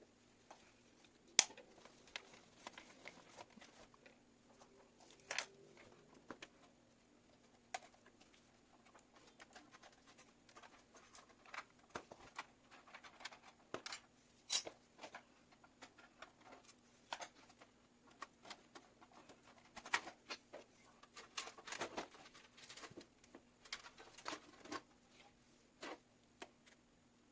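Hands handling PC parts and cables: scattered light clicks, taps and rustling, with a few sharper clicks, over a faint steady hum.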